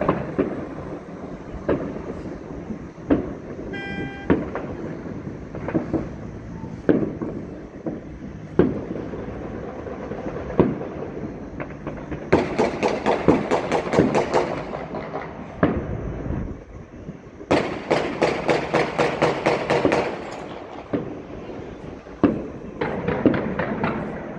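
Celebratory gunfire and fireworks bangs over a city: scattered single bangs, then two long rapid strings of cracks, about 12 and 18 seconds in, and a shorter string near the end. A brief horn toot sounds about four seconds in.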